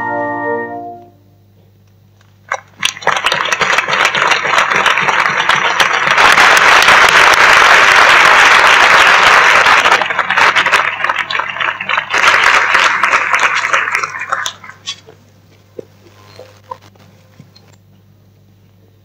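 Organ music ends on a held chord about a second in. After a short pause, a crowd applauds for about twelve seconds, then the clapping thins out to a few last claps.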